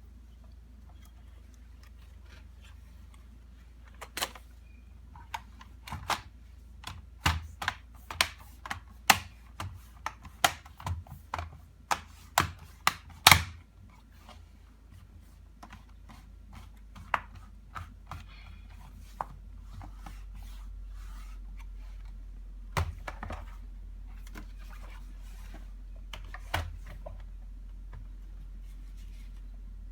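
A run of sharp clicks and knocks, thickest between about 4 and 14 seconds in with a few scattered ones later, typical of hard plastic laptop parts and screws being handled, over a steady low hum.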